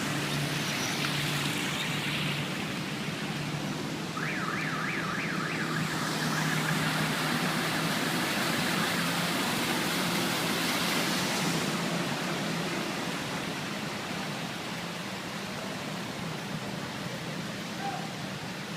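Steady noise of a flooded city street with a low engine hum underneath. About four seconds in comes a short run of quick rising chirps, like a car alarm.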